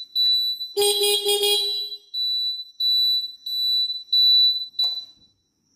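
A high-pitched electronic beep repeats about every two-thirds of a second and stops about five seconds in. Near the start, a motorcycle's electric horn gives a buzzy blast of about a second, broken into short pulses.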